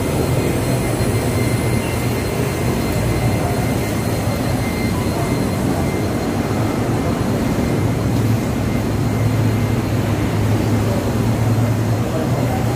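Steady low hum and rumble of background traffic, with no single event standing out.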